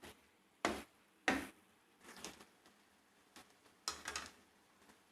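A cooking utensil stirring chopped chicken into fried onions in a pan: a few sharp knocks and scrapes against the pan, the loudest at under a second, about a second and a half, and about four seconds in.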